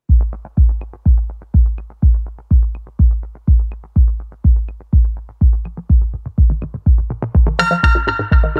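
Electronic background music with a deep kick drum about twice a second, joined near the end by a bright synthesizer melody.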